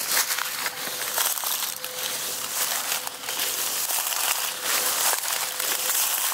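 Footsteps crunching through dry leaf litter and twigs on a woodland floor, an uneven crackling and crumpling with a sharp snap here and there.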